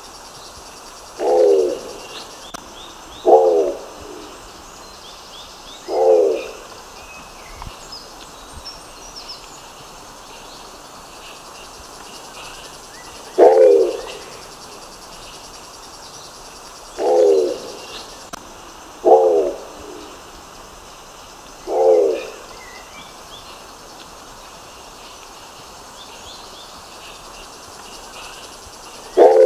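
Nicobar pigeon giving short, low calls, about eight in all, each about half a second long and spaced irregularly two to seven seconds apart. Faint high chirps run in the background.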